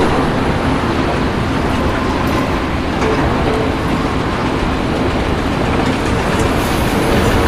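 A loud, steady mechanical rumble and rattle with a faint low hum running underneath.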